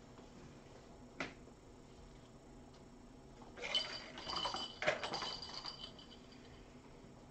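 Dishes clattering, with a couple of metallic clanks whose ringing hangs on for about two seconds, starting about three and a half seconds in. A single light click comes about a second in.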